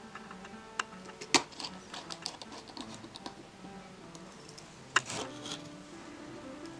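Light clicks and taps of a small screwdriver and tiny screws on a smartphone's frame during reassembly, with two sharper clicks about a second and a half in and about five seconds in. Quiet piano music plays underneath.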